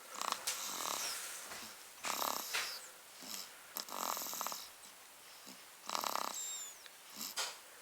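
Snoring: a rattling snore about every two seconds, some of them trailed by a thin falling whistle.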